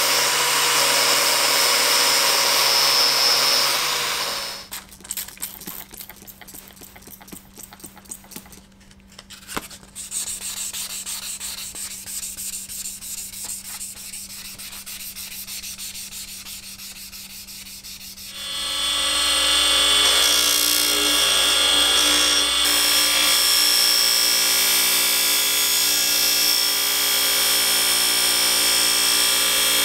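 An angle grinder running an 800-grit DA sanding disc against a steel axe head; about four seconds in it stops, and 800-grit wet sandpaper on a hand block scrubs back and forth over the steel. About eighteen seconds in, a bench grinder with a buffing wheel starts running loudly as the axe head is polished against the wheel.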